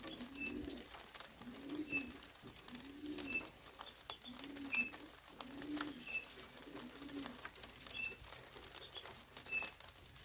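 Pigeons cooing: a series of low, rising-and-falling coos repeated every second or so, with a short high chirp coming back about every second and a half.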